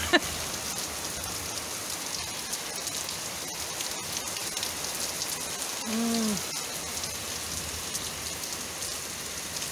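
Heavy rain falling steadily on garden trees, a paved path and a roof, an even hiss. About six seconds in, a brief low hummed 'mm' from a person's voice.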